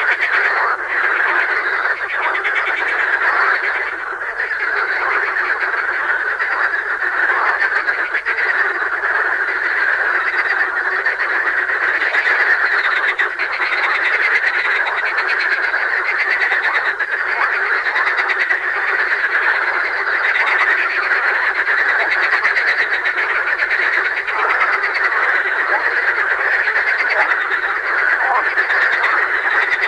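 Marsh frogs (Pelophylax ridibundus) calling in a dense chorus, many males overlapping without a break, their calls running in laughing cascades.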